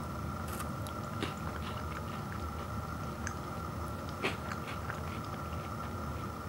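Hands handling a snack-size Kit Kat bar and its wrapper: light crinkles and small clicks scattered through, with one sharper click a little past halfway, over a steady background hum.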